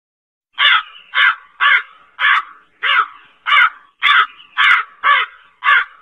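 A crow cawing: a rapid run of about ten short caws, roughly two a second, starting about half a second in.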